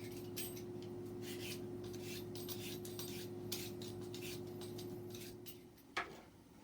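Butternut squash being peeled: repeated rasping scrapes of a blade across the tough skin, about two strokes a second, then a single knock near the end.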